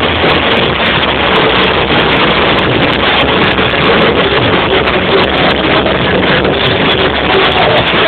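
A rock band playing live and loud, drums, guitars and keyboard together, heard through an overloaded camera microphone as a dense, distorted wash of sound.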